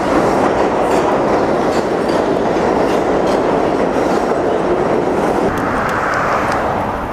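A train passing close by: a loud, steady rumble of rail cars running on the track, with light ticks on top, that eases off near the end.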